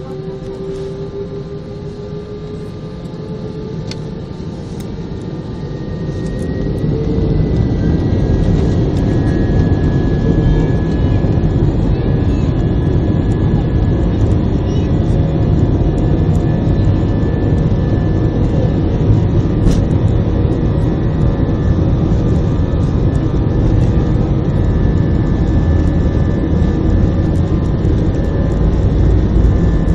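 Heard inside the cabin, a jet airliner's engines spool up with a rising whine to takeoff power. About six to eight seconds in the sound grows louder, then holds as a steady loud rumble of the takeoff roll.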